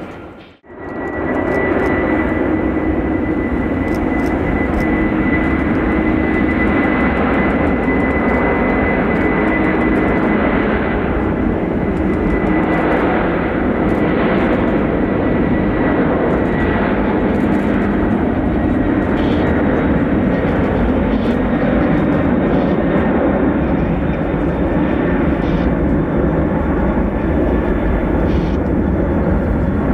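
Jet engines of a heavy cargo airliner running at high power: a steady, loud rush of engine noise with a high whine that fades out about halfway through.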